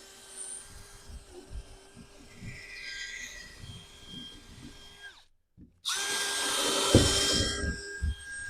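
Power drill running at a steady pitch, boring a hole into wood. It stops dead for a moment about five seconds in, then runs again louder with low grinding knocks as the bit cuts.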